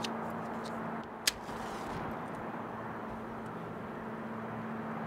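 Steady outdoor background noise with a single sharp click about a second in: a cigarette lighter being struck to light a cigarette.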